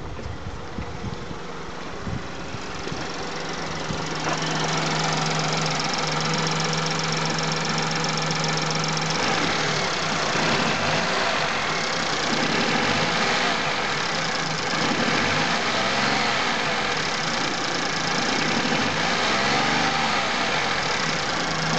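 VW Polo 1.2 three-cylinder petrol engine (code CGPB) idling steadily. It gets louder about four seconds in, with a steady hum on top for the next few seconds.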